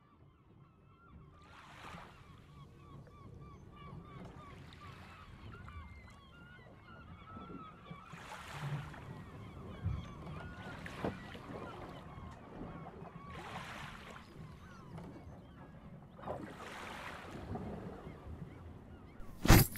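Sea ambience: waves washing in swells every two to three seconds over a steady low rumble, with many short honking bird calls throughout. Right at the end, heavy marching footsteps begin, about two stomps a second.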